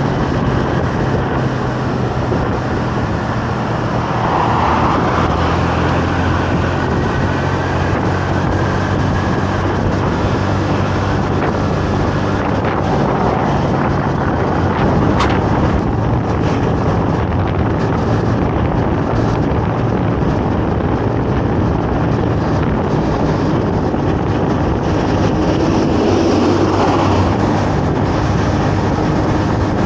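Honda Navi 110's small single-cylinder engine running at a steady cruising speed while riding, with wind rushing over the microphone.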